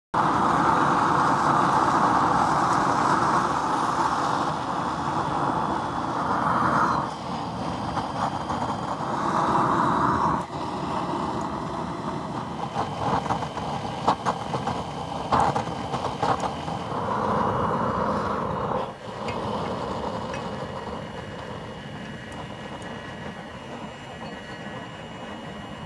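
Homemade waste-oil burner running: a steady rushing of flame and air that swells and fades several times, with a few sharp metal clicks in the middle, then settles to a quieter steady rush near the end.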